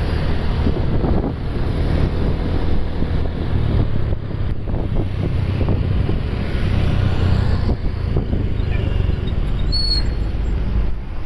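Steady low rumble of a bus engine running, with wind buffeting the microphone. A short, faint high chirp sounds near the end.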